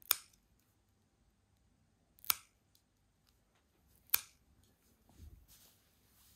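Pet nail clippers snipping through a kitten's claws: three sharp clips about two seconds apart, followed by a soft rustle near the end.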